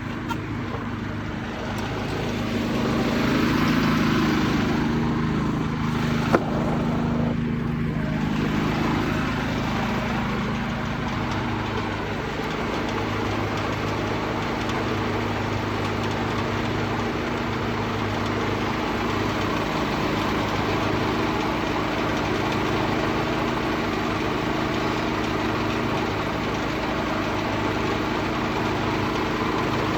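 A Detroit Diesel 6-71 two-stroke inline-six running steadily, muffled as if heard from inside a pocket. The sound swells for a few seconds, and there is one sharp knock about six seconds in.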